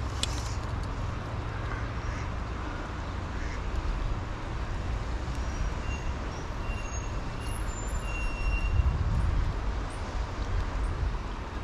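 Wind rumbling on the microphone over the steady rush of a shallow, rippling river, the rumble swelling about eight seconds in. A few faint high whistles come through in the middle.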